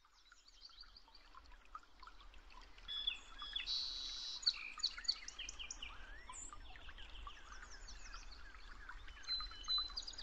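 Several small birds chirping and calling together, many short high chirps and quick pitch sweeps, fading in from silence over the first couple of seconds.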